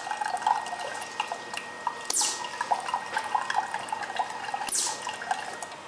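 Carbonated water pouring from the automated drink dispenser into a cup, finishing off a Coke, with a steady fizzing crackle. Twice a brief high hiss falls in pitch.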